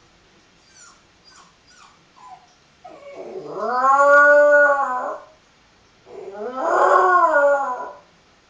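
Jack Russell terrier puppy howling: a few faint short whimpers, then two long, loud howls that rise and fall in pitch.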